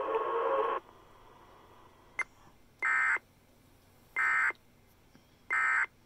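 Emergency Alert System end-of-message data bursts: three short, identical buzzy digital squawks about 1.3 seconds apart, signalling the end of the weather alert broadcast. Before them, the broadcast audio cuts off under a second in.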